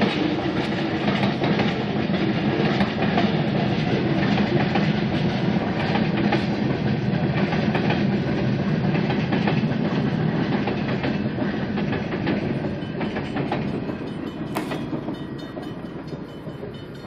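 Cars of a mixed freight train rolling past at a grade crossing, steel wheels running steadily over the rails, the sound fading over the last few seconds. A single sharp click sounds near the end.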